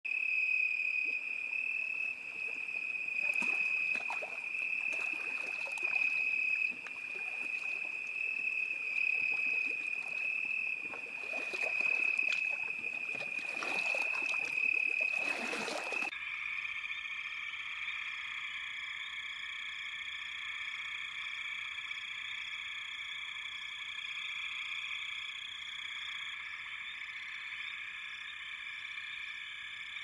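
A wild chorus of calling animals: a steady high trill with scattered rustling clicks, which changes suddenly about halfway through to a denser, buzzier chorus that holds steady.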